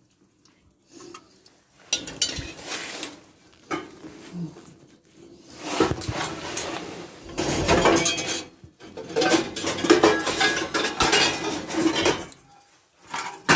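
Metal cooking pots clanking and clattering against each other as they are handled: a short clatter about two seconds in, then a longer run of clanking from about six seconds until near the end.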